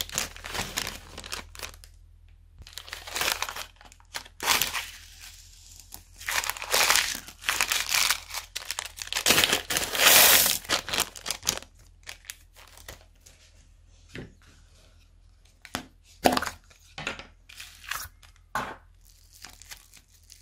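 Small plastic bags crinkling and tearing as they are handled and opened, with beads pouring out of them into a glass bowl. The longest, loudest pour comes about ten seconds in, followed by sparser short clicks and crackles.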